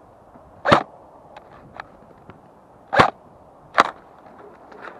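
Slow footsteps on a loose, stony dirt trail: three louder steps, just under a second in, at about three seconds and again just before four, with faint ticks between.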